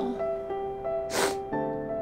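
Soft piano background music, notes changing every half second or so, with one short breathy noise about a second in.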